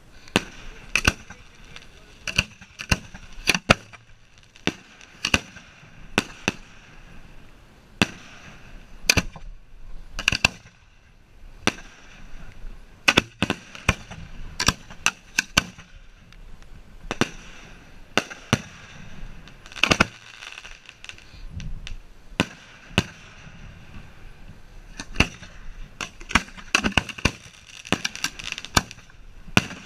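Aerial fireworks shells firing from racks of mortar tubes at close range, hand-lit with a road flare: a rapid, irregular string of sharp bangs, at times several a second, with hiss and crackle between them.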